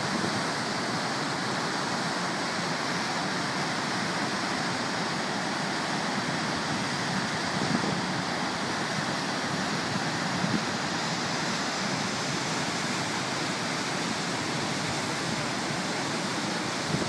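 Whitewater rapids and falls rushing over rock ledges: a steady, unbroken rush of water.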